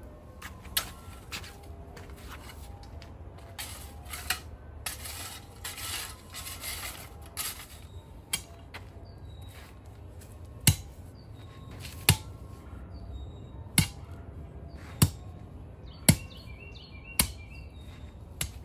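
Hand tamper striking down a layer of paver base and sand: a scraping, gravelly rustle for a few seconds early on, then from about halfway in seven sharp thuds roughly one every second and a quarter. Faint bird chirps come near the end.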